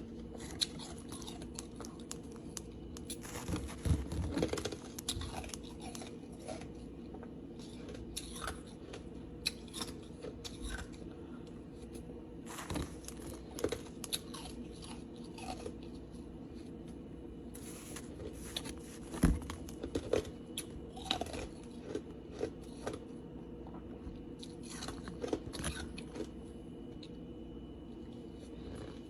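Ice being bitten and chewed close to the microphone: irregular crisp crunches, with heavier bites about four seconds in and again about nineteen seconds in.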